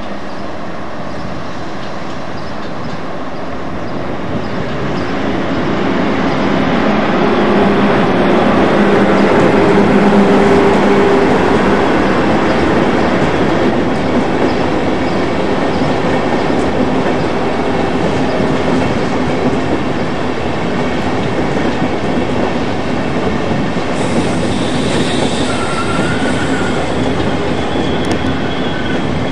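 Passenger train of coaches rolling through station trackwork: a steady rumble of wheels on rails with clickety-clack over the joints, loudest about ten seconds in. Near the end come high squealing tones from the wheels.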